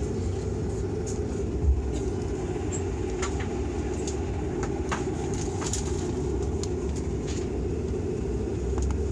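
Dash 8-Q400's Pratt & Whitney PW150A turboprop engine running with its propeller turning, a steady drone heard inside the cabin. A short thump comes just under two seconds in, and a few light clicks follow.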